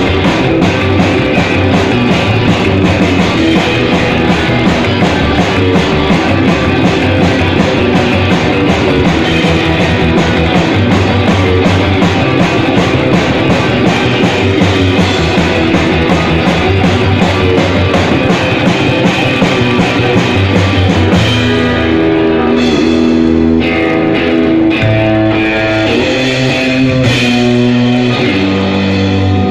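Rock music played by a band, with guitar and drum kit and a busy, steady beat. About two-thirds of the way through, the dense drumming thins out and longer held chords come to the fore.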